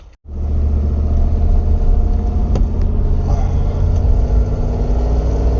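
Heavy equipment engine running steadily with a deep, even rumble, cutting in abruptly about a quarter second in.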